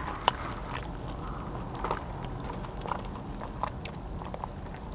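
Quiet mouth sounds of a person chewing and sipping a soda through a straw, with a few scattered small clicks.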